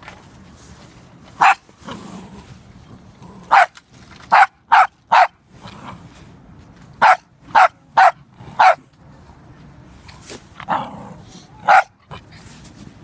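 A small dog barking at a snow shovel pushed toward it: about eleven sharp barks in short runs, the busiest run near the middle.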